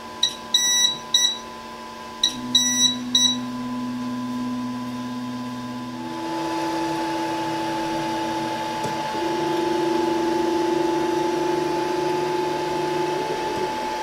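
QIDI X-MAX 3D printer starting a print: two groups of short, high electronic beeps in the first few seconds, then a steady motor hum with fan noise that steps up in pitch at about six seconds and again at about nine seconds, growing louder.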